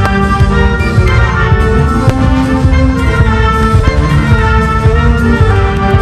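Loud orchestral music with prominent brass, sustained chords changing about every second, played as the soundtrack to a fireworks display.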